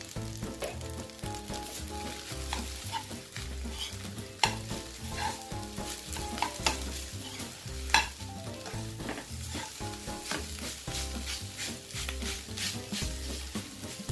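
Leftover rice stir-frying in a nonstick wok: a steady sizzle under the scrape and clack of a spoon turning the rice against the pan, with sharp clacks about four and eight seconds in.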